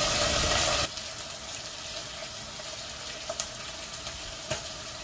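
Chicken frying in a hot pan, sizzling loudly, then cut off abruptly about a second in. What follows is a faint steady kitchen background with a couple of light clinks of a fork against a porcelain plate.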